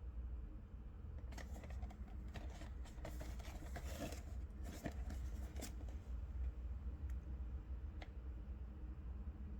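Packaging being handled and opened by hand: a run of scraping, crinkling and clicking noises, busiest over the first half, then only a stray click. A steady low hum runs underneath.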